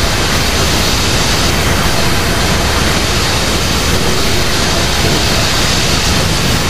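Loud, steady rushing roar of an energy-beam sound effect: atomic breath and ray beams colliding in a sustained blast. It cuts off abruptly at the very end.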